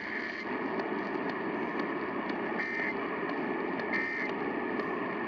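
Short bursts of Emergency Alert System SAME header data tones near 2 kHz, about a second and a half apart, heard three times. They sit over the steady hiss and static of a broadcast radio receiver at the start of a required weekly test.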